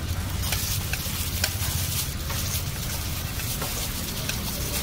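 A gloved hand mixing mashed potato stuffing in a wide steel plate: wet squishing and rustling, with a few light clicks against the metal, over a steady low hum.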